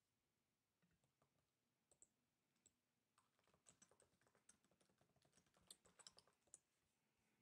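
Faint typing on a computer keyboard: a run of light clicks, sparse at first and coming thick and fast from about three seconds in, stopping shortly before the end.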